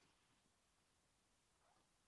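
Near silence: faint background hiss, with one faint, brief soft sound near the end.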